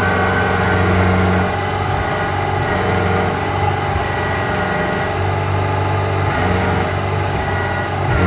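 Kubota combine harvester's diesel engine running steadily.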